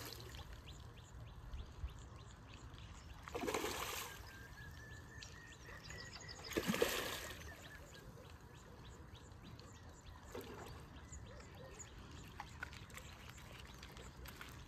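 Hooked rohu splashing as it thrashes at the surface while being played on a rod, two short splashes about three and a half and seven seconds in, the second louder.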